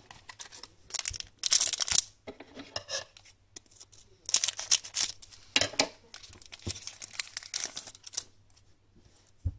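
An Upper Deck Black Diamond hockey card pack being torn open by hand, the wrapper tearing in several short bursts with pauses between.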